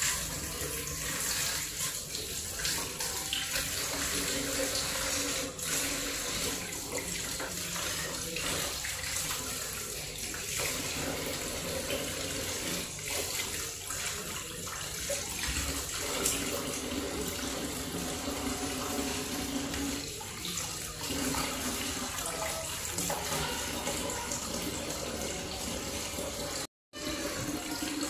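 Kitchen tap running, its stream splashing over fish pieces rubbed clean by hand above a stainless steel bowl in a steel sink: a steady hiss of running water that cuts out for a moment near the end.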